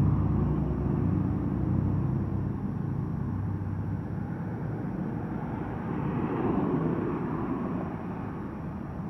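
Airliner engines rumbling and slowly fading away, with a brief swell about six seconds in.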